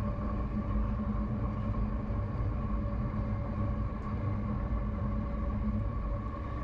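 Train running through a mountain tunnel: a steady rumble with several steady droning tones, one of which drops out about six seconds in.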